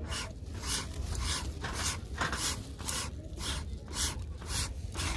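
Regular rasping strokes, about three a second, over a low steady rumble.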